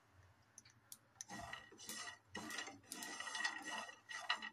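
Faint dry-roasting in a nonstick pan: a few small ticks from sesame seeds popping, which the cook takes as the sign they are roasted. From about a second in, a spatula scrapes through the seeds, peanuts and coconut in short strokes, about once a second.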